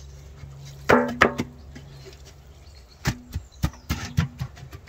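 Knocks on the bottom of an upside-down metal stockpot, to loosen a cooled block of beeswax from it: a few loud ringing knocks about a second in, then a faster run of sharper knocks from about three seconds in.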